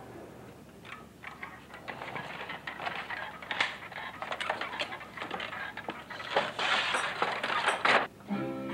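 Irregular knocks, clicks and clatter of objects being handled, thickening into a dense rustling hiss in the last couple of seconds. Guitar music comes in just before the end.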